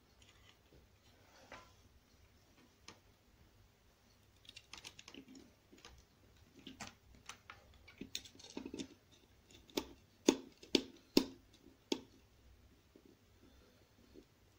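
Small screwdriver clicking and scraping on the terminal screw of a single-pole wall light switch as the phase wire is clamped under it, with light handling taps of the wire and switch. Faint and scattered at first, the clicks grow sharper and more frequent in the second half.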